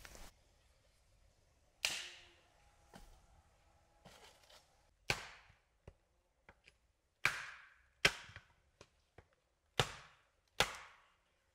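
Hatchet chopping into a small log on a wooden chopping block: about six sharp, unevenly spaced strikes, each with a short ringing tail, with lighter taps in between.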